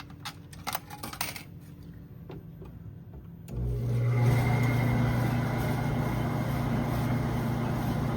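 A few clicks, then about three and a half seconds in a clothes dryer starts and runs with a steady hum from its motor and turning drum. There is no rubbing noise: the bent metal that was catching has been pushed back down.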